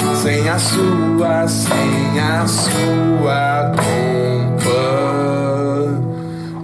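A man singing a Brazilian folk song over acoustic guitar, with plastic cups knocked on a table about once a second in a cup-percussion rhythm. The singing ends about five and a half seconds in, leaving the guitar chord ringing.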